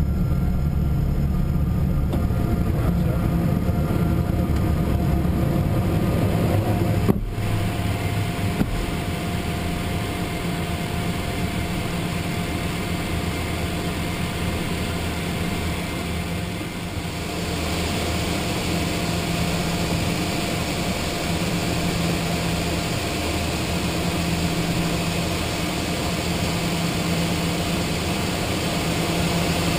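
Cockpit noise of a Learjet 45XR climbing out after takeoff: a steady blend of its rear-mounted turbofan engines and rushing airflow. A single sharp thump comes about seven seconds in, after which the low rumble eases, and the airflow hiss grows louder about halfway through.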